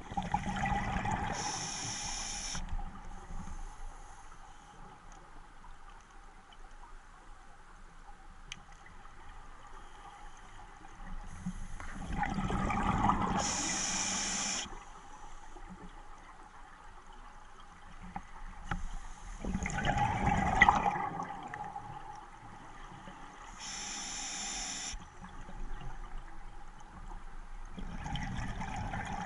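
Scuba regulator breathing underwater: slow breaths several seconds apart, each a gurgling burst of exhaled bubbles, with a high hiss from the regulator on the inhale.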